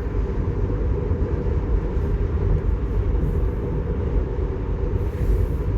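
Steady low rumble inside a Tesla Model 3's cabin, even throughout with no distinct events.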